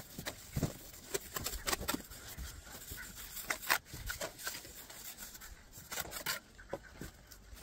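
Mason's trowel scraping and tapping on wet cement mortar while a concrete slab top is spread and smoothed, in irregular short strokes.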